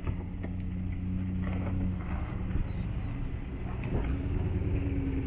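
Jeep Grand Cherokee's engine running steadily at low revs as the SUV crawls down a steep dirt slope, with a few scattered clicks of tyres over gravel and stones.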